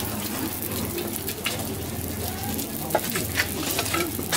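Okonomiyaki frying on a hot iron griddle: a steady sizzle with scattered short crackles, over a low steady hum.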